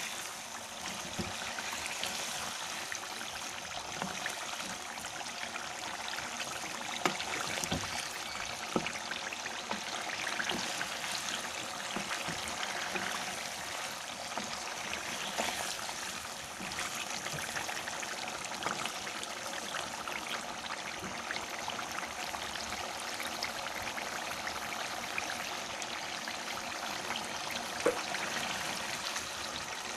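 Chicken livers sizzling as they fry in oil in a pot: a steady hiss with a few sharp pops.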